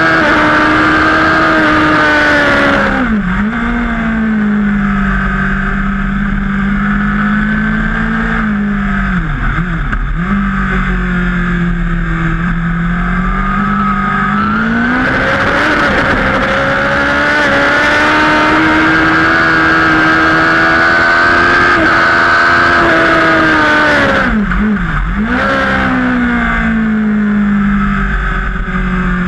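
Superbike engine running hard at high revs, its pitch dropping sharply about three seconds in and twice around twenty-five seconds as the bike slows and shifts down for corners, dipping briefly near ten seconds, and climbing again about fifteen seconds in under throttle. A steady rushing hiss rides above the engine.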